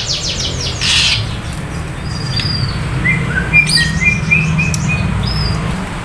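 Caged pied starling (jalak suren) calling: a rapid, harsh high chatter about a second in, then a string of short clear whistles in the middle.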